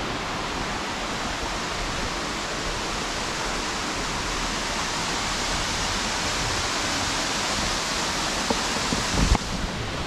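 Steady rush of water from a small waterfall and a shallow stream running over rocks, with a few low knocks near the end.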